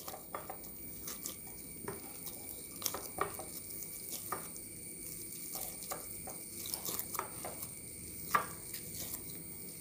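A hand kneading and pounding stiff urad dal pappadam dough in a glass bowl: irregular soft squishes and taps of the dough and hand against the glass, working the dough until it softens.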